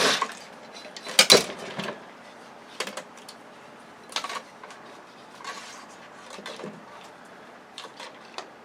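Metal clinks and clatters of hand tools and loose parts as a screwed-in speaker is worked out of a flat-screen TV's housing: a loud clatter at the start and another about a second in, then scattered lighter clicks.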